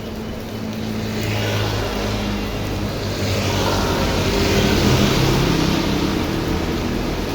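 Heavy rain falling, with a rushing swell that builds from about a second in, peaks around five seconds and eases slightly, with a low hum beneath it.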